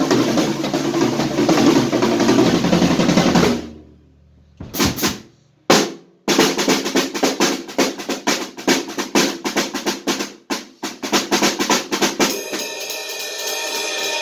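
Acoustic drum kit being played: a dense wash of cymbals and drums breaks off into a near-silent gap of about two seconds with a few scattered hits. Then comes a fast run of drum strokes for about six seconds, and near the end a steady groove with ringing cymbals.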